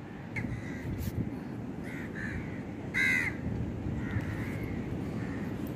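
Crows cawing: several short caws, the loudest about three seconds in, over a steady low background rumble.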